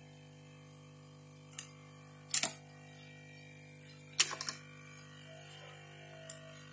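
Small tools and parts clicking and clattering on a repair bench: two short clusters of sharp clicks about two seconds apart, with a few fainter single clicks, over a steady electrical hum.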